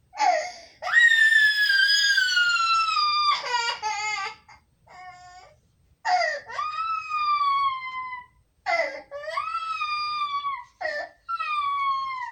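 A young child crying at being left by its mother: a string of long, high wails that fall in pitch, with short hiccupping sobs in between.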